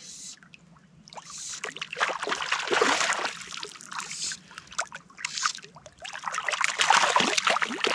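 Hooked brook trout thrashing and splashing at the surface of the water, in repeated bursts of splashing that start about a second in and ease off briefly just past the middle.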